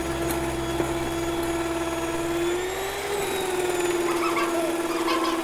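Electric hand mixer running steadily, its twin beaters whipping a thick coffee-and-sugar paste in a glass bowl. The motor's whine rises briefly in pitch about three seconds in, then settles back.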